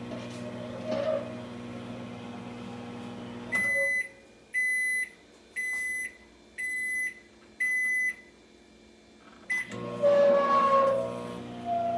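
Black+DECKER EM720CB7 700-watt microwave oven running with a steady hum, then shutting off at the end of its cycle and sounding five high beeps about a second apart. A click follows, and a hum starts up again near the end.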